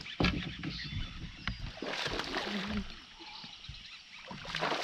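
A hooked bass splashing at the surface beside a boat as it is scooped into a landing net, with a few sharp knocks near the start.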